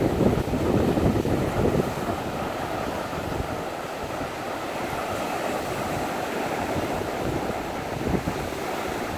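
Sea surf breaking and washing up a sandy beach, with wind buffeting the microphone; a little louder in the first couple of seconds.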